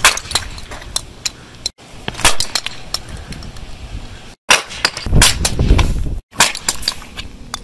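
Hockey slap shots: a series of sharp cracks and smacks as the stick blade strikes 3D-printed plastic pucks and the pucks hit a brick wall and clatter on asphalt.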